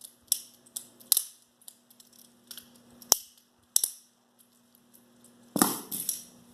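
Plastic balisong trainer being flipped, its handles clacking together in a series of sharp, irregular clicks; it is very clappy. A brief rustling burst comes near the end.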